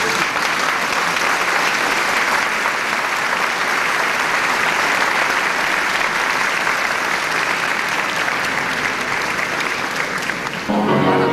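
Audience applauding steadily for about ten seconds, with music coming back in near the end.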